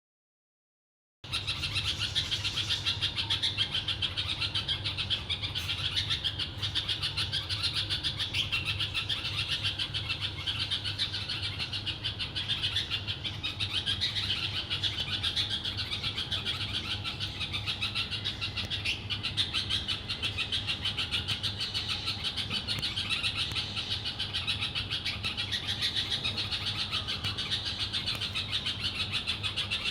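Many small birds chirping together in a dense, continuous chorus of short high calls, starting about a second in, over a low steady hum.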